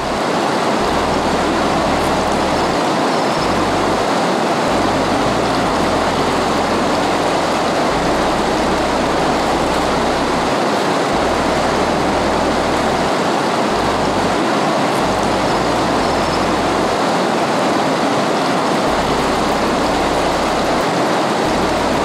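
River water rushing over shallow rapids: a steady, even rush of water.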